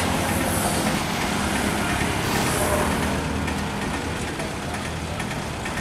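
Passenger train of ICF coaches running away along the track: a steady rumble of wheels on rail under a low hum, easing off slightly in the second half.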